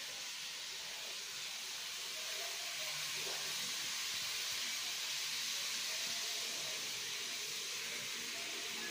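A steady high hiss of background noise, with faint brief murmurs in the lower range.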